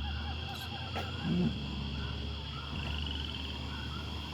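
A steady chorus of short chirping animal calls, repeating several times a second, over a low steady hum.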